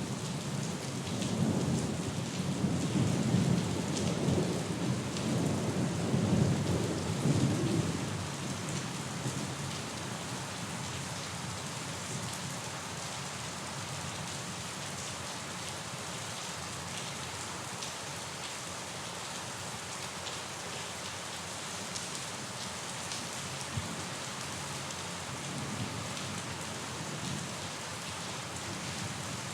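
Steady rain falling, with a long low roll of thunder in the first several seconds that fades away about a quarter of the way through, leaving only the even hiss of rain.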